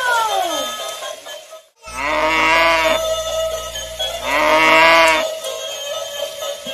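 Two electronic cow moos, each about a second long, from a battery-powered toy cow's sound unit. A falling electronic tone fades out in the first second, and a steady tone runs underneath.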